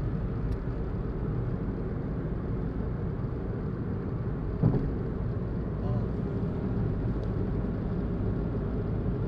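Steady road and engine noise heard inside a moving car's cabin, a low rumble, with one brief thump about four and a half seconds in.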